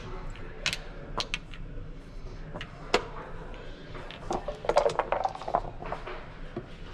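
Plastic backgammon checkers clacking on the board as they are picked up and set down: scattered sharp clicks, then a quick flurry of clacks between about four and five and a half seconds in.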